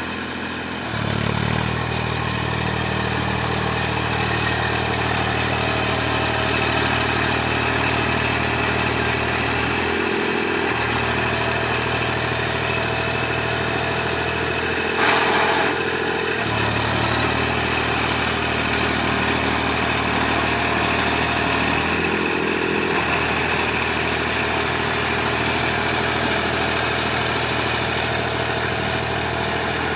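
Eicher tractor's diesel engine running steadily, its note shifting several times as the throttle or load changes, with one brief sharp knock about halfway through.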